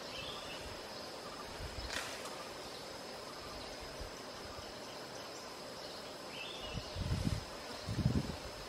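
Steady high insect drone of tropical forest, with one sharp snap about two seconds in and a few low, muffled thumps near the end.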